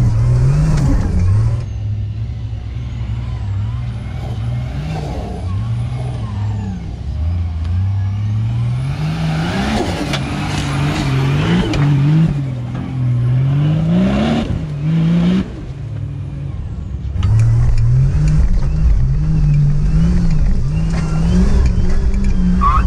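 Turbocharged TB42 straight-six of a Nissan GQ Patrol competition truck revving hard and falling back again and again, each rise in pitch lasting a second or two, as the truck works through rough off-road terrain. It is heard from inside the cab at the start and end, and from outside in the middle, where it sounds quieter.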